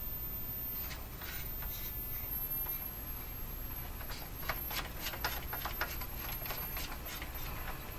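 Hallicrafters TW1000 tube radio being tuned in search of a signal: a steady low hum and hiss, with a run of quick clicks and crackles about halfway through.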